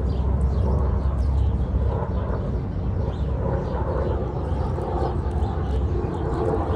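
Outdoor park ambience: a steady low rumble with a faint murmur and scattered faint high chirps.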